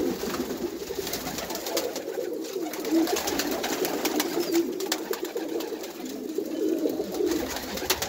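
A loft full of Birmingham Roller pigeons cooing together, a steady low warbling chorus, with scattered light clicks throughout.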